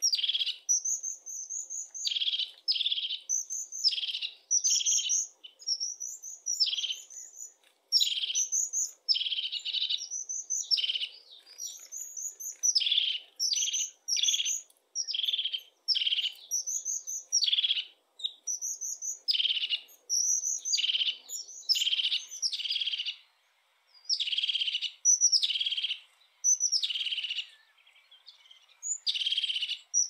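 Crested tit calling over and over. Each call is a short high note that drops into a fast purring trill, about one to two calls a second, with a few short pauses.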